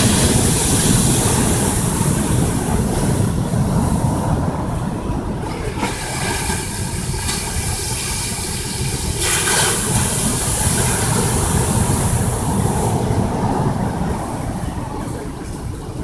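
Surf breaking and washing up a sandy beach over a steady low rumble. Two long hissing surges come from breaking waves, one at the start and another about nine seconds in.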